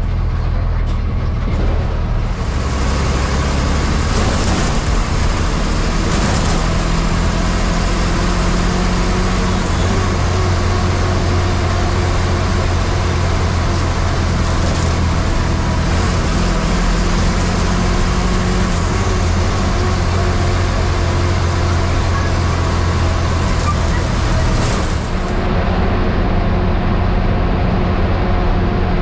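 MSRTC bus engine running steadily under way, heard from inside the bus. A hissing road and wind noise rises about two seconds in and drops away a few seconds before the end.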